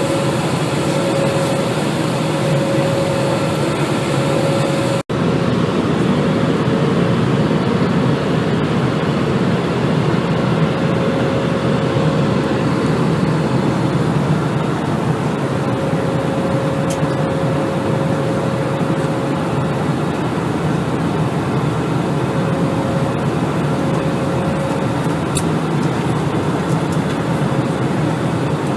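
Airbus A320 cabin noise in flight: the steady roar of the engines and the airflow past the fuselage, with a faint steady hum in it. The sound drops out for a moment about five seconds in.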